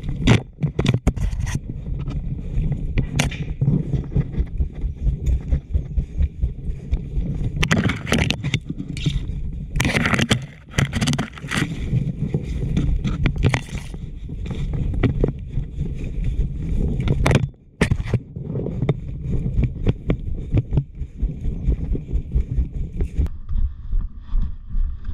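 Footsteps and rustling of branches and leaves against body and gear while pushing through undergrowth, played back sped up so that they run together into a rapid, choppy scraping and crackling.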